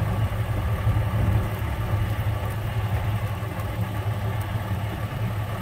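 Steady low rumble of a vehicle's engine and road noise, heard from inside the vehicle as it rolls slowly along.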